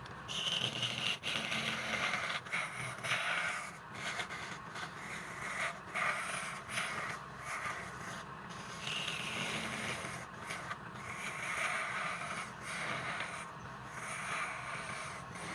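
Hand-held turning tool cutting a workpiece spinning on a lathe: a rough scraping noise that swells and breaks off every second or so as the tool is pressed in and eased off, over the steady hum of the lathe.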